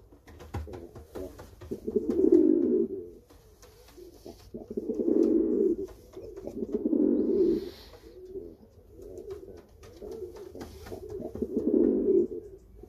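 Rafeño pouter pigeon cooing: five low, rolling bouts of about a second each, coming roughly every two seconds.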